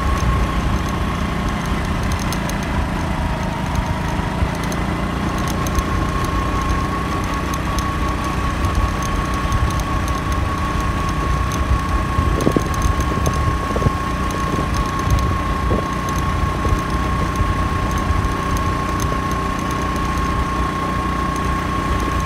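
Motorcycle engine running at a steady cruise, heard from the rider's seat with a heavy low rumble of wind and road noise, and a thin steady high whine throughout.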